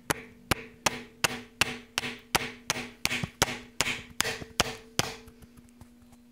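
Hammer tapping a flathead screwdriver into a steel freeze plug on a Chevy 4.3 engine block: about fourteen sharp metallic blows, roughly three a second, each with a short ring, stopping about five seconds in. This drives the screwdriver tip through the plug to work it out of its bore.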